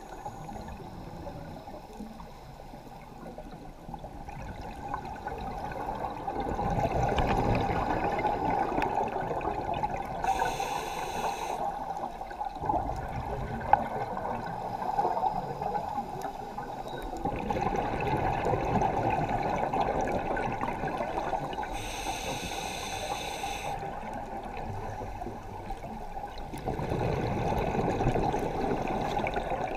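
Scuba diver breathing through a regulator underwater: a long rush of exhaled bubbles roughly every ten seconds, with a shorter hiss of inhaling between them.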